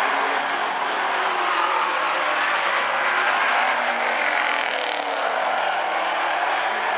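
Street stock race cars running at speed around an oval track, a steady engine noise with no let-up.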